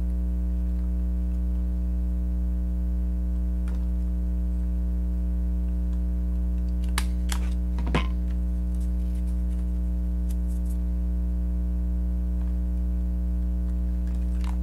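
Steady electrical hum, with a few light clicks and taps around seven and eight seconds in as ribbon pieces are handled on a wooden table.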